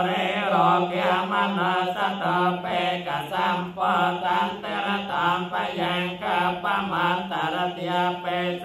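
Theravada Buddhist paritta chanting in Pali: voices reciting on a steady held pitch in an even, continuous rhythm.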